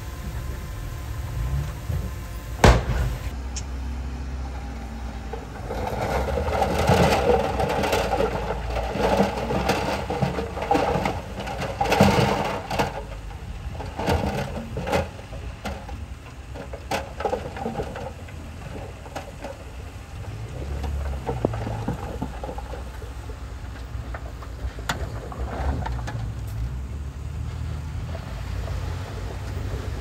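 Diesel engine of heavy earthmoving machinery running steadily, with a sharp knock about two and a half seconds in and a busy stretch of clatter and knocking from about six to thirteen seconds.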